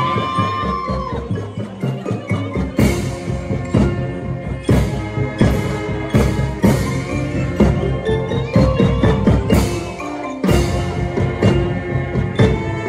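Marching band playing its show music, with the front ensemble's mallet keyboards (marimba and xylophone) striking out notes over sustained band chords, a bass line and drums.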